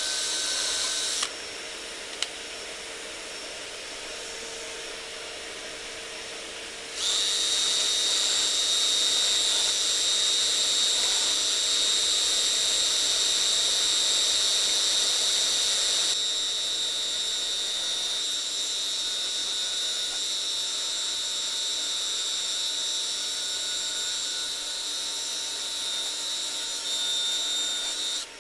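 Power drill running with a steady high-pitched motor whine, most likely drilling out the rivets in steel canopy-frame tubing. It slows about a second in, speeds up again about seven seconds in, eases off a little around sixteen seconds, and stops near the end.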